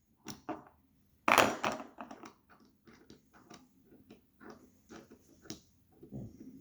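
Small clicks, taps and rattles from a puzzle lock being handled and worked, with one louder clatter a little over a second in.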